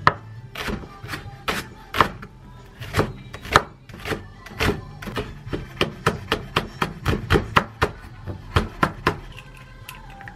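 Kitchen knife slicing a green onion into rounds on a wooden cutting board: a quick run of sharp chops, about three a second, that stops about nine seconds in. Trot music plays underneath.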